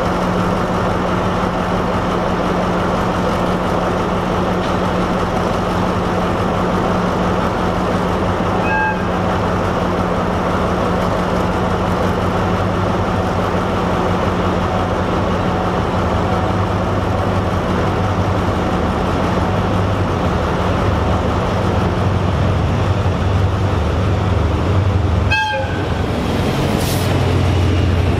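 Diesel locomotive engines at a station: a steady idling hum close by, joined from about halfway by the deeper, growing sound of an arriving locomotive. A train horn gives a short toot about a third of the way in and another near the end, followed by a brief hiss.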